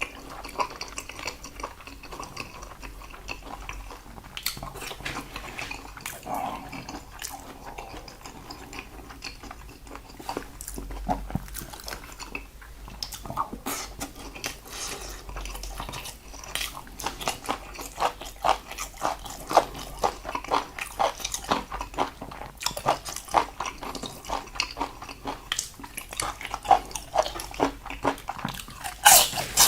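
Close-miked chewing and biting of a person eating salted seafood (jeotgal): many short mouth clicks and bites, busier and louder in the second half.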